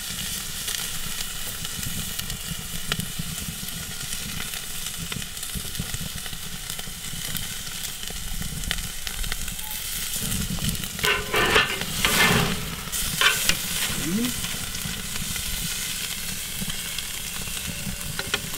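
Pepper-crusted beef rump cap searing on a grill grate over charcoal at about 410 degrees, with steady sizzling and crackling as the crust forms.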